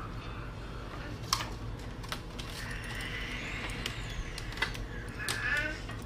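Light clicks and knocks of an Ethernet cable's plug being pushed into a laptop's network port, the sharpest about a second in, over a steady low hum.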